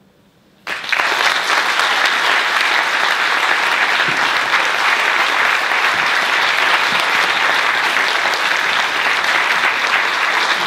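Audience applauding: a full round of clapping that starts suddenly under a second in, after a moment of near silence, and then holds steady.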